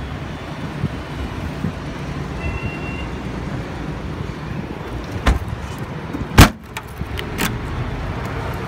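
Toyota Vios boot lid being shut: one loud thud about six and a half seconds in, with lighter knocks about a second before and after it. Steady road traffic rumbles underneath.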